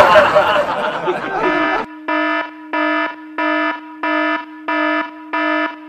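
Loud shouting and noise that break off about a second and a half in. A repeating electronic beep follows, a buzzy alarm-like tone that sounds about one and a half times a second.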